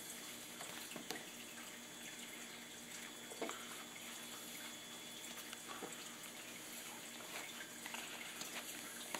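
Soft, faint crackles of soaked corrugated cardboard being laid and pressed down by hand in a plastic tub, over a steady hiss.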